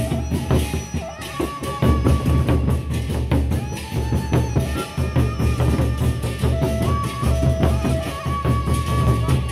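Gendang beleq ensemble playing on the march: large Sasak barrel drums beating a fast, dense rhythm under frequent cymbal-like clashes, with a few held melodic tones above.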